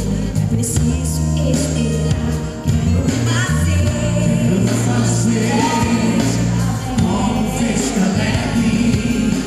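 Live gospel band music with singing, over steady bass and drums.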